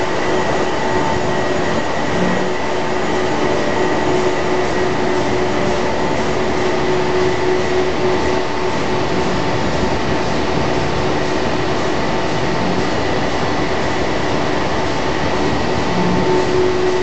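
Chemical plant machinery running: a loud, steady drone with a few constant hum tones over it.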